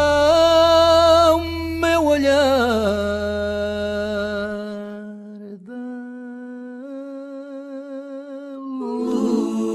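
A singer holds long wordless notes with vibrato as a love song ends, sliding down in pitch about two seconds in. The low backing drops out about halfway, leaving the held voice alone, and several voices come in together near the end.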